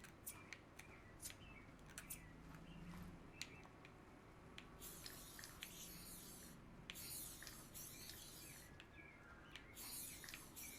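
Faint spraying hiss in three bursts of one to two seconds each, starting about five seconds in, with a few scattered small clicks and taps before them.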